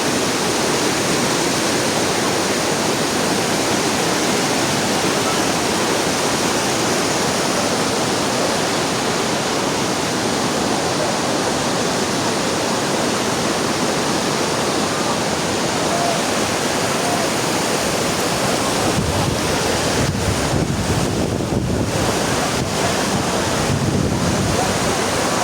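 Steady rushing of Manthoka Waterfall, glacier-fed water crashing down. From about 19 seconds in, wind rumbles on the microphone over it.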